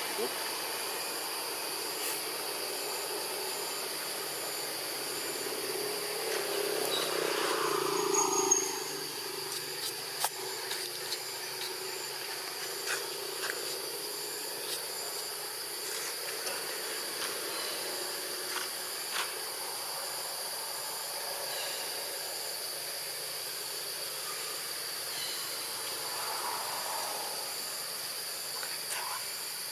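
Steady high-pitched drone of insects, with scattered faint clicks. A louder, lower sound swells for a few seconds and cuts off suddenly about eight seconds in.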